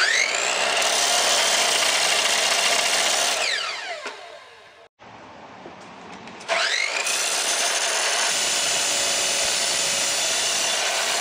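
Makita miter saw with a 10-inch abrasive metal cutoff wheel, starting with a rising whine, running steadily, then winding down about four seconds in. It starts again with another rising whine about six and a half seconds in and runs on, grinding through a steel table-saw fence rail.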